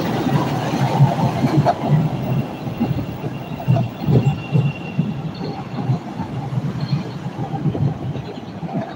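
CTA Red Line rapid-transit train pulling out of an elevated station: the cars rumble and the wheels knock over the rail joints as the train passes close by, then fade as it leaves. Faint wheel squeal comes and goes near the middle.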